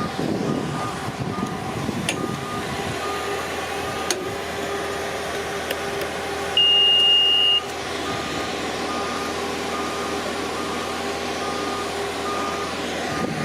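Heavy equipment's warning alarm beeping at a steady, even rate over an engine running. About halfway through, a single louder, higher beep sounds for about a second.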